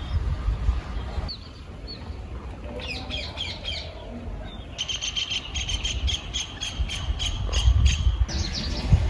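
Small birds chirping: a quick cluster of chirps about three seconds in, then a steady run of repeated high notes, about four a second, lasting some three seconds, with more chirps near the end. A low rumble runs underneath.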